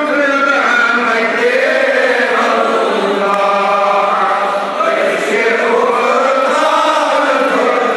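Many men's voices chanting Darood (salutations on the Prophet) together in a steady, sung recitation without a break.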